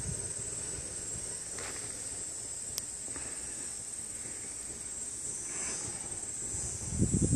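Steady high-pitched trilling of insects outdoors, with a single sharp click about three seconds in and a brief low rumble on the microphone near the end.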